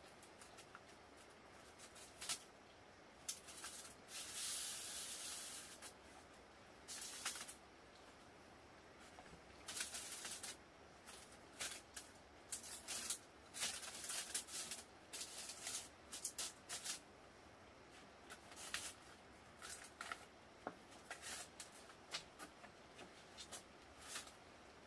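Intermittent dry rustling and scraping, many short irregular noises, with a longer hiss about four to six seconds in.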